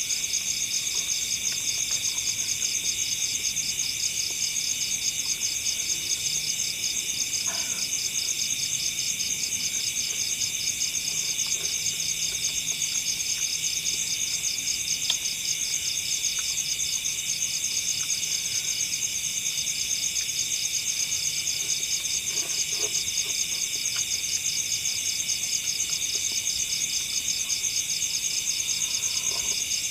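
Dense, unbroken chorus of forest insects such as crickets: a high, fast-pulsing trill that stays steady throughout, with a few faint clicks beneath it.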